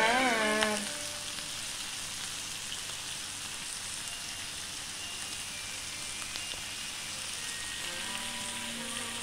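Pork belly and beef slices sizzling on an electric grill plate: a steady frying hiss. A second or so of singing or music is heard at the very start.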